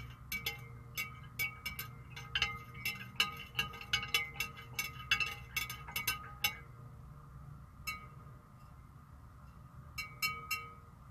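Chimes tinkling: a quick run of light clinks, two or three a second, each ringing on at the same few pitches. They thin out after about six seconds, with one more strike and a short cluster near the end, over a steady low hum.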